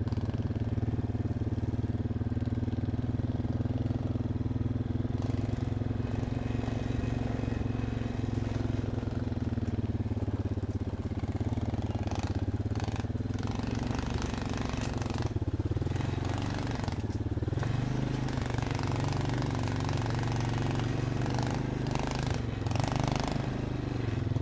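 Off-road vehicle's engine running steadily at low revs while it crawls along the trail, with a few brief knocks and scrapes in the second half.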